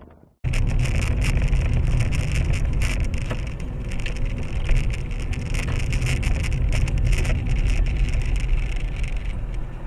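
Car cabin noise picked up by a dash camera while driving: steady engine and road rumble, starting abruptly about half a second in, with frequent small clicks and crackles throughout.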